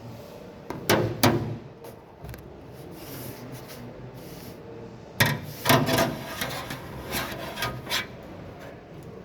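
Tools tapping and rubbing on a car body panel during hail dent repair: two sharp knocks about a second in, then a run of about eight knocks, roughly two a second, a few seconds later.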